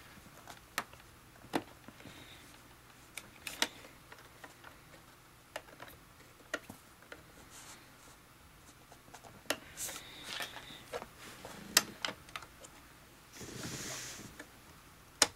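Scattered small clicks and taps as RAM modules are pushed back into a 27-inch iMac's memory slots, with a brief scraping rustle about thirteen seconds in.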